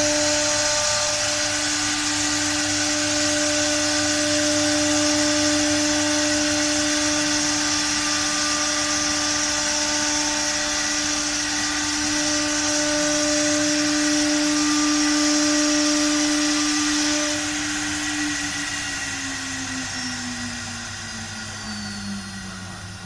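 CNC wood router spindle whining steadily while its bit cuts into a wooden board, with a high rasping cutting noise and a low hum underneath. About three-quarters of the way through the cutting noise stops and the spindle's whine falls steadily in pitch as it winds down.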